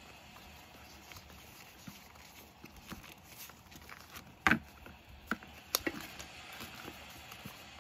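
Hands shuffling and rustling paper sticker sheets on a desk. There are a few sharp crinkling taps, the loudest about halfway through.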